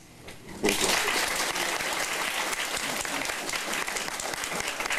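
An audience clapping, breaking out suddenly less than a second in and going on steadily.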